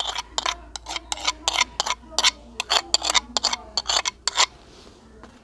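A metal spoon clinking and scraping against a small clay bowl as finely chopped onion is knocked out of it: a quick run of sharp clicks, about four a second, that stops near the end.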